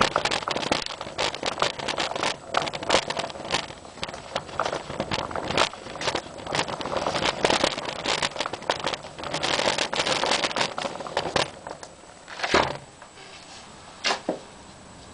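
Irregular clattering and clicking, dense at first and thinning out, with two sharper knocks near the end, then a faint steady hiss.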